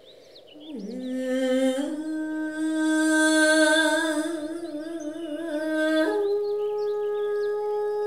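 Background music: a slow, wordless melody that slides up into a long held note with vibrato about a second in, then steps up to a higher held note about six seconds in. Faint high chirps sit behind it.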